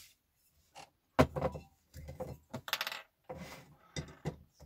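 Metallic clinks and knocks as a small gas torch head is handled and fitted onto a gas canister, with a brief hiss about three seconds in.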